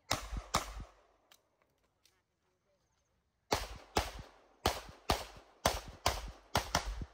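Pistol shots fired in a practical shooting stage: two quick shots at the start, a pause of about three seconds, then a rapid string of about eight more, several in close pairs. Each crack is followed by a short echo off the range.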